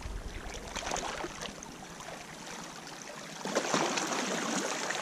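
Small waves lapping and washing over rocks at the water's edge, with a louder wash of water over the rocks about three and a half seconds in.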